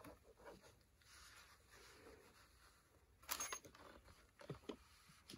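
Quiet handling at an ironing board: faint rustling of cotton fabric and light knocks as a steam iron is moved over a pleated mask, with one brief louder swish about three seconds in.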